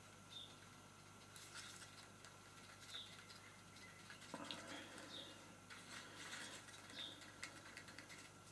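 Faint scraping and light clicking of a brush handle stirring thick mixed silicone in a small plastic cup, with four brief, faint high chirps spread through it.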